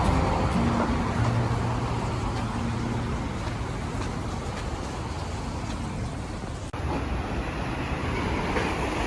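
Steady city traffic noise, the hum of passing cars and buses, with a brief break about two-thirds of the way through.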